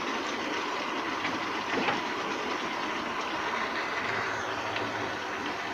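Laksa spice paste frying in oil in a steel stockpot, a steady sizzling hiss, with a light tap of the wooden spoon about two seconds in.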